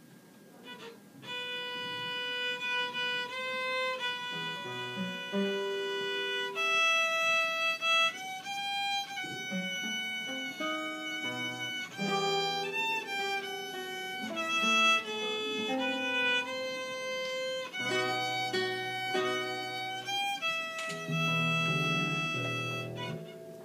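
Small ensemble playing a piece: a sustained lead melody over electronic keyboard and classical guitar accompaniment. The music starts about a second in.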